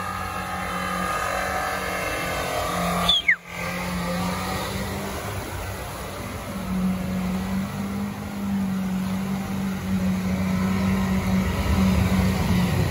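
Off-road race car's engine running hard as it drives the dirt course, with a brief drop-out about three seconds in; the engine gets louder and stronger in the second half.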